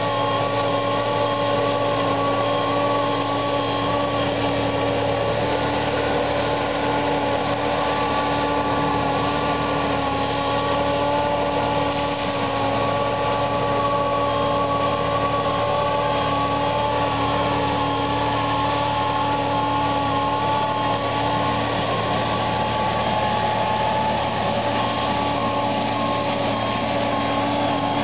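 Gyro Trac GT-25XP tracked mulcher running steadily while its front mulching head grinds manzanita brush: a constant engine drone with a steady whine, level throughout.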